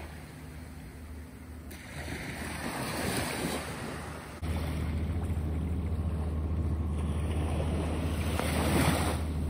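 Small waves washing up onto a sandy beach, the surf swelling and fading, loudest about two to three seconds in and again near the end. From about halfway a steady low rumble of wind on the microphone joins in.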